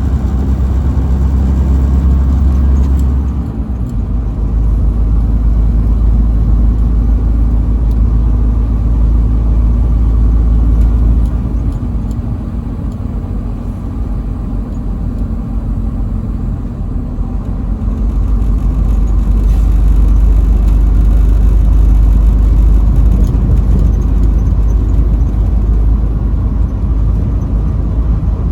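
Truck engine and road noise while driving: a loud, steady low drone that dips about three seconds in, eases off for several seconds in the middle, then swells again.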